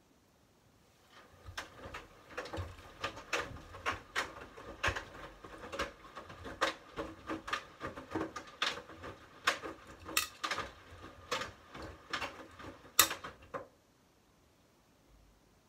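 Front-loading washing machine drum turning through a wash-phase tumble with wet hoodies, a low rumble under an irregular run of knocks and clicks that starts about a second in and stops about two seconds before the end as the drum comes to rest.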